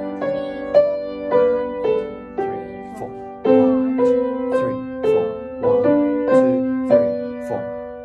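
Yamaha upright piano played by a beginner: single melody notes at a slow, steady pulse of about two a second over held lower notes, which change to a new held chord about three and a half seconds in.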